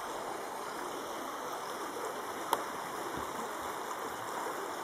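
Shallow river flowing over stones, a steady rush of water. One short click about halfway through.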